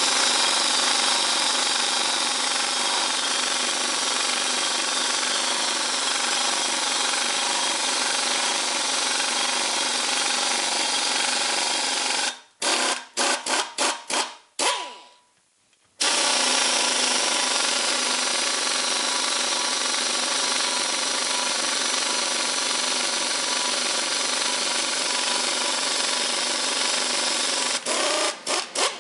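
Air-powered butterfly impact wrench running with a tap in its holder, cutting threads into 6061 aluminium extrusion. A long steady run breaks into a string of short on-off blips about twelve seconds in, stops for about a second, then runs steadily again and ends in a few quick blips.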